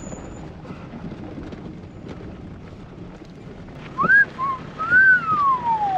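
A person whistles a wolf whistle about four seconds in: a quick rising note, then a long note that rises and glides down. Before it there is only a faint, steady low background noise.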